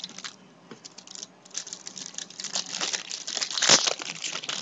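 Bowman Chrome baseball cards being handled and flipped through: a run of crinkly rustles and quick flicks, loudest a little past halfway.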